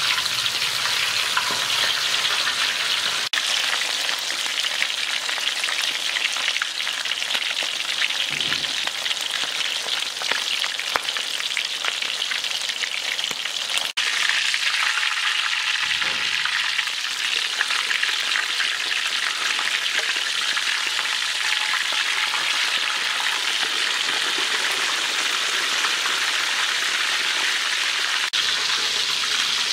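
Chicken thigh quarters shallow-frying in hot oil in a metal wok, sizzling steadily.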